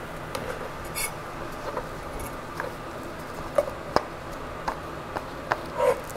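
Cleaver knocking and scraping on a cutting board while cutting up soft cooked meat: about ten light, irregular taps.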